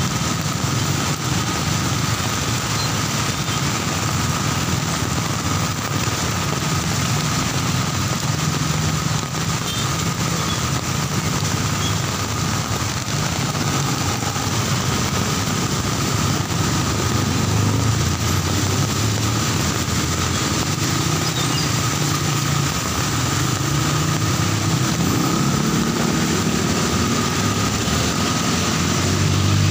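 Heavy rain pouring down steadily on a wet city street, with car and motorcycle engines running and passing through the water on the road.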